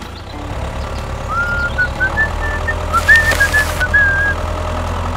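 A toy remote-control excavator runs with a steady low engine-like hum. Through the middle comes a string of short, high whistle-like tones, and about three seconds in there is a brief gritty rasp as the bucket works the sand.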